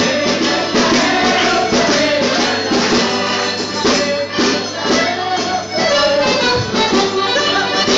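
Italian folk song performed live: a tambourine beating a quick steady rhythm with its jingles, under a moving melody line.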